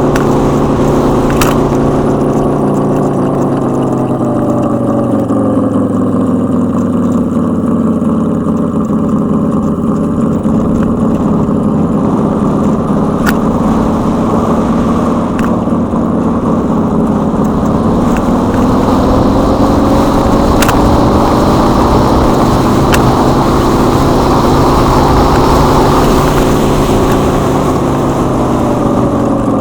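Synthetic engine sound from EUC World's AVAS, played through a Kingsong 16X electric unicycle's speakers as it rides. The engine-like hum falls in pitch a few seconds in, climbs back, dips again past the middle and rises, following wheel speed, with a few sharp clicks.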